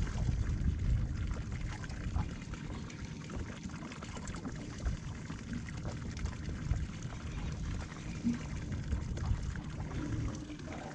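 Water lapping and trickling against a fishing boat's hull over a low, uneven rumble.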